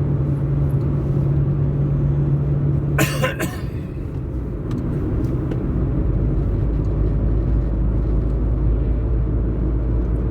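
Car engine and road rumble heard from inside a moving car, with a short sharp burst about three seconds in. The low rumble grows heavier about six seconds in.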